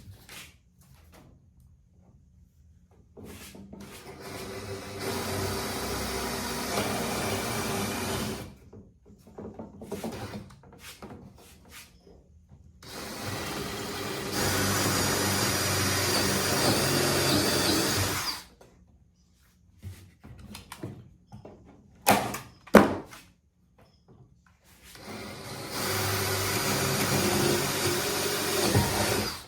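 Power drill boring holes through plywood: three runs of a few seconds each, each getting louder partway in as the bit bites, with a few sharp knocks between the second and third.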